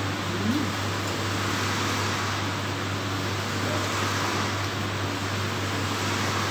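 Steady mechanical hum with an even hiss.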